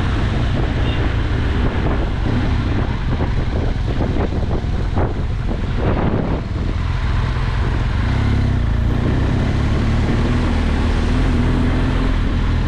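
BMW adventure motorcycle under way, its engine running under a heavy rush of wind over the microphone. The engine note holds steadier in the second half.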